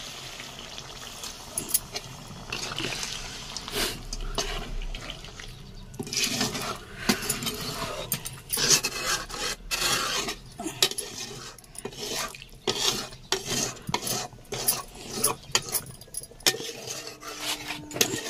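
Water poured into a pot of frying chicken curry in the first few seconds. From about six seconds in, a flat metal spatula stirs the curry, scraping and clinking against the metal pot in quick, irregular strokes.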